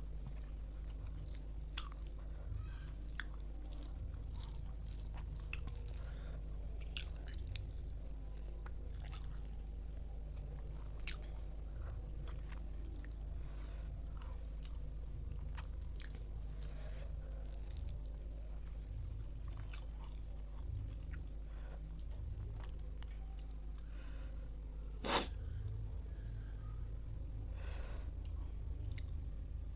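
A person chewing food close to the microphone, with many small scattered mouth clicks over a steady low hum. One sharp, louder click about 25 seconds in.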